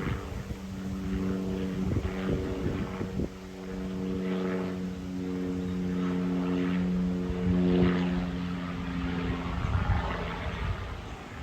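Cessna 208B Grand Caravan's single turboprop engine and propeller passing over on approach to land: a steady propeller drone that swells to its loudest about eight seconds in, then fades away near the end, with wind rumble on the microphone.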